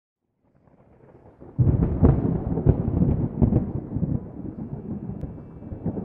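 Thunder: a low rumble fades in, then breaks into a loud crackling peal about a second and a half in, with a few sharp cracks over a deep rumble that slowly fades.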